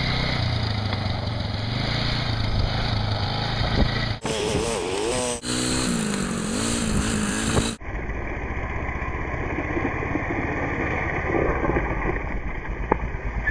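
Youth ATV's small engine running and revving, its pitch rising and falling as the quad is ridden on pavement. The sound cuts abruptly a few times, about four, five and eight seconds in.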